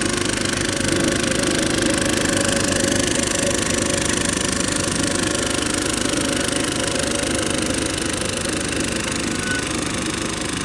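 Road roller's engine running steadily, with a fast, even chugging pulse.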